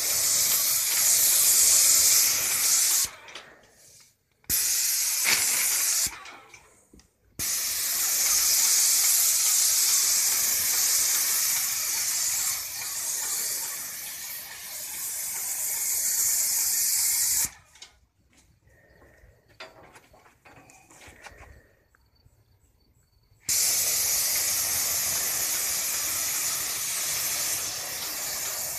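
Airless paint sprayer with a 313 tip spraying paint: a loud, high hiss from the tip that starts and stops abruptly as the trigger is pulled and released. It sprays in four spells, the longest about ten seconds, with short quiet gaps between.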